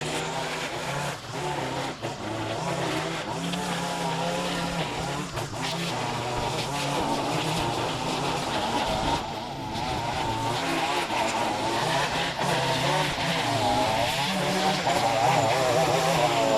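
Small gasoline engine of lawn power equipment running steadily, its pitch wavering up and down under changing load, with a brief dip about halfway through.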